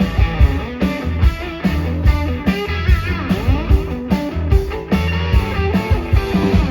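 Rock band playing live in an instrumental section: electric guitar over bass and a steady drum beat. About halfway through, guitar notes slide up and down in pitch.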